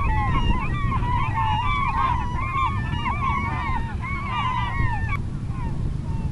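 A flock of birds calling: many short calls overlapping, over a steady low wind rumble. The calls cut off abruptly about five seconds in.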